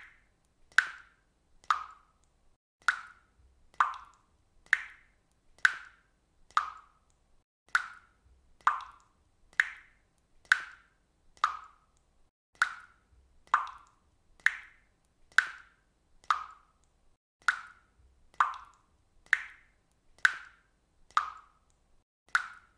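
Water dripping from a faucet: a steady run of single drops, about one a second, each a short plop; the drops alternate slightly between a lower and a higher pitch.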